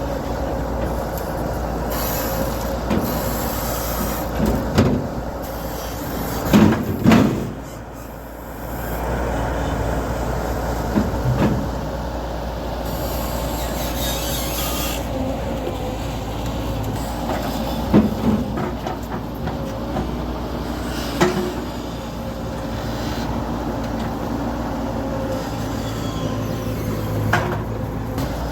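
An engine running steadily, with several heavy knocks and thuds of logs being unloaded and stacked.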